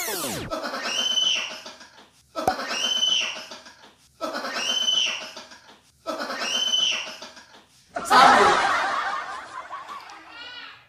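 Laughing sound effect: the same short snickering laugh clip played four times back to back, followed about eight seconds in by a louder, noisier burst.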